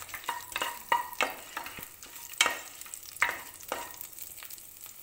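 Wooden spatula scraping and knocking against a pan in irregular strokes, stirring whole spices and chopped green chillies in hot ghee, with a light sizzle underneath.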